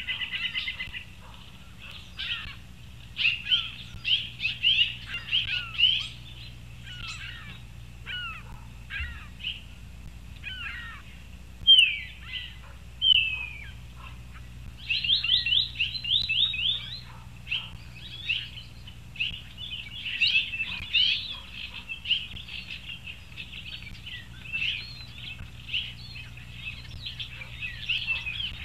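Small songbirds chirping and singing, mostly quick downward-sliding notes, with a fast trill of repeated notes about fifteen seconds in, over a faint steady low hum.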